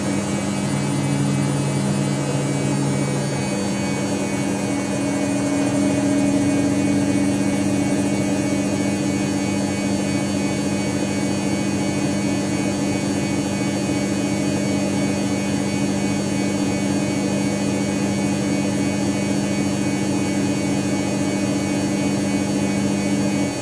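Dyson Contrarotator CR01 washing machine running, its motor giving a steady electric hum with a higher whine over it. A lower tone joins for a couple of seconds near the start, and the main hum tone cuts out right at the end.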